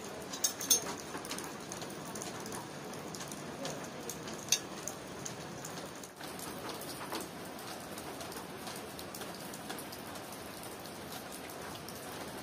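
Steady rain falling on the surfaces around a porch, with a few sharp clinks of metal spoons against ceramic soup bowls, two close together just after the start and one about four and a half seconds in.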